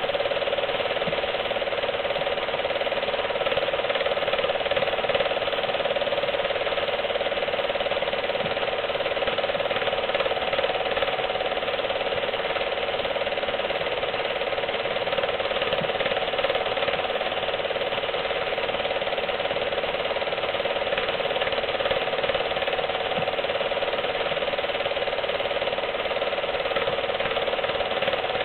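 Film projector running steadily: a continuous mechanical noise from its motor and film-advance mechanism, with no other sound.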